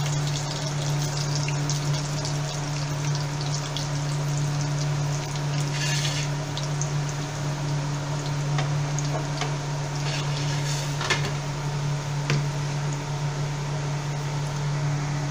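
Whole spices (cumin seeds, cloves and dry fenugreek) sizzling and crackling in hot mustard oil in a pan, a steady hiss with scattered small pops and a few louder ones. A steady low hum runs underneath.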